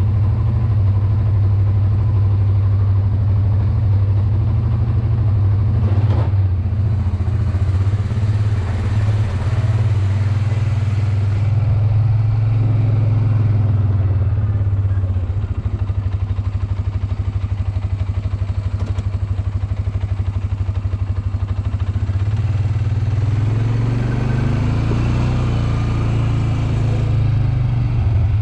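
ATV engine running steadily while riding. The engine eases off about halfway and picks up again near the end.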